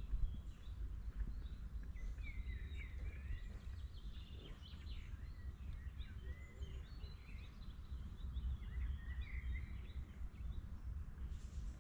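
Songbirds chirping and singing repeatedly over a steady low rumble of wind on the microphone.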